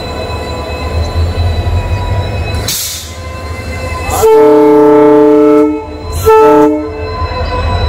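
Indian Railways locomotive sounding its horn twice: a long blast of about a second and a half, then a short one. It plays over the steady low rumble of the locomotive's engine, with a brief hiss a little before the first blast.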